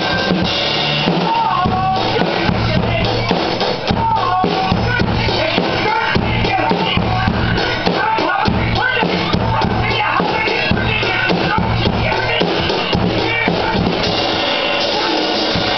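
A drum kit played with sticks in a steady rock beat, along with a rock recording whose bass and guitar lines carry on under it.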